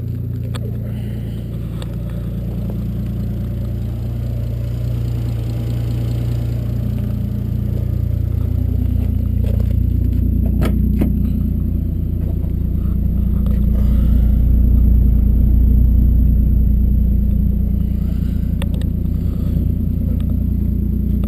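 Toyota 2JZ-GTE straight-six with a single Turbonetics T70 turbo idling steadily, still warming up after a cold start. A couple of light clicks come about ten seconds in.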